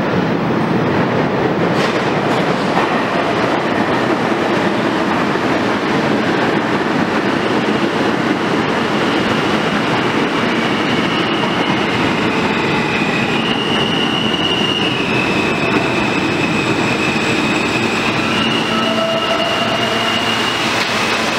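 New York City Subway train of R160A cars running into an underground station, with a steady loud rumble of wheels on rail. From about a third of the way in, a high whine joins it and shifts up and down in pitch in steps.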